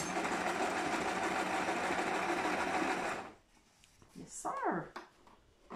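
Electric domestic sewing machine running steadily while stitching elastic onto a fabric sheet's edge, then stopping abruptly about three seconds in.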